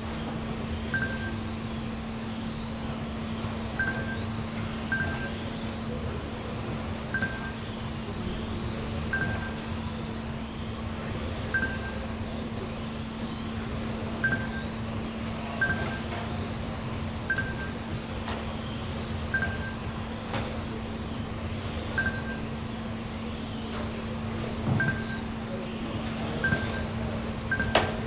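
Race lap-timing system beeping, a short electronic beep each time a car crosses the timing loop, irregularly every second or two. Under it run the faint rising and falling whines of electric 1/12-scale GT12 RC cars and a steady low hum.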